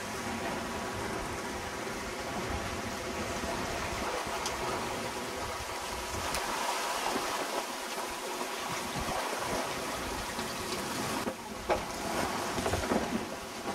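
Sea water rushing and splashing along the hull of a sailing yacht under way, a steady noisy wash. The sound shifts about eleven seconds in, with a couple of short knocks near the end.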